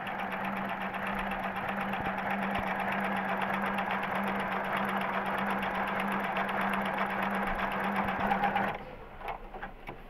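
Juki computerized sewing machine running at a steady speed while sewing an overlock stitch, with a motor hum under rapid, even needle ticking; it stops about nine seconds in.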